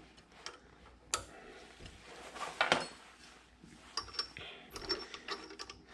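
Scattered metal clicks and clinks of hand work on a bench lathe: a tool bit being set and clamped in the tool post and the carriage handwheel being turned. The sharpest knocks come about a second in and near three seconds, with a few brief ringing clinks later.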